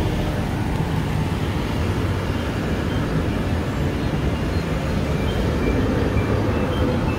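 Automatic orange juice vending machine at work, a steady mechanical hum and rumble as an orange drops from the feeder into the cutting cups, with street traffic noise mixed in.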